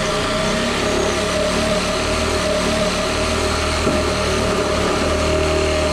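Compact cordless reciprocating saw running steadily as its blade cuts through a wooden 2x4 board.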